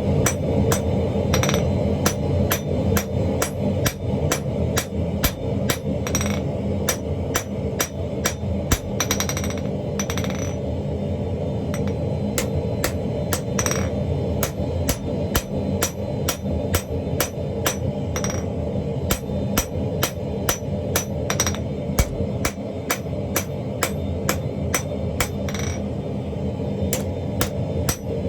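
Forging hammer blows on hot chain Damascus steel over an anvil, struck at a steady pace of about two to three a second, some blows with a short metallic ring. A steady low rumble runs underneath.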